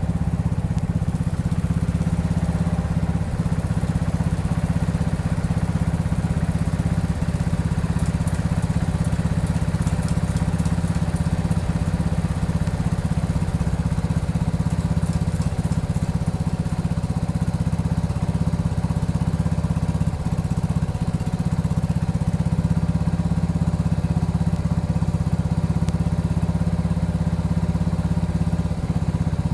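Case 224 garden tractor engine running steadily as it drives its snowthrower, blowing snow on a test pass.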